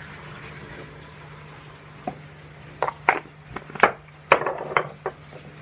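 A spoon clinking and tapping against a spice container while chicken spice mix is scooped out: a quick run of sharp taps starting about two seconds in, over a steady low hum.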